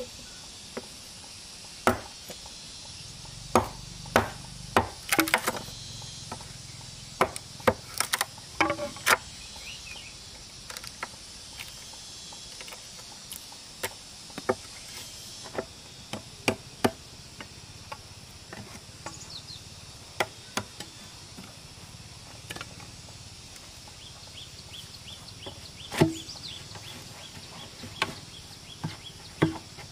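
Irregular sharp knocks and taps of hand work on green bamboo: a notched bamboo post being worked and a bamboo pole knocked into place in it, with the loudest knock a little before the end.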